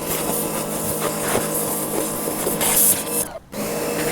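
Sun Joe SPX3000 electric pressure washer running, its pump motor humming steadily under the hiss of the high-pressure jet. The jet stops abruptly about three seconds in, then starts again.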